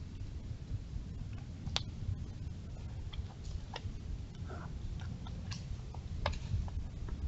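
A deer stepping over leaf litter and twigs: scattered, uneven sharp clicks and snaps of its hooves, over a steady low rumble.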